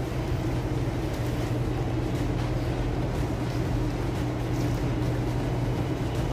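Steady low hum and rush of supermarket background noise, such as refrigerated display cases and ventilation, with a few faint clicks.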